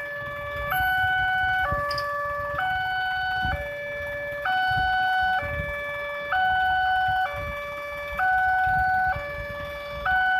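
Railway level-crossing warning alarm sounding its two-tone chime, switching between a lower and a higher tone about once a second, warning that a train is approaching and the barriers are down.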